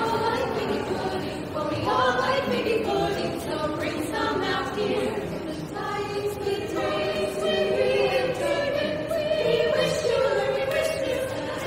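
Vocal ensemble singing together in harmony.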